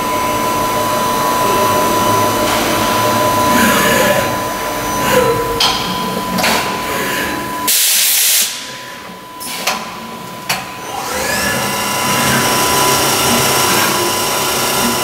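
Cincinnati Arrow 500 vertical machining centre working through an automatic tool change: a steady machine whine with gliding axis moves, a short loud burst of hiss about eight seconds in, two sharp clunks a little later, then the spindle whining up in pitch and settling at speed.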